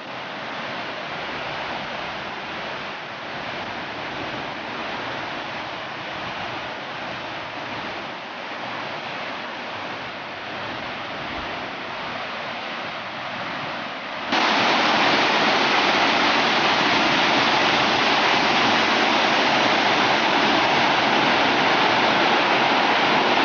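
Steady rush of a hill river's waterfall, water pouring over rock. About fourteen seconds in it jumps suddenly louder and fuller, as if nearer the falls.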